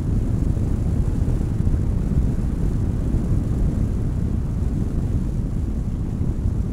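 Car driving at speed, picked up by a microphone mounted outside on the car's body: a steady low rumble of wind buffeting and road noise.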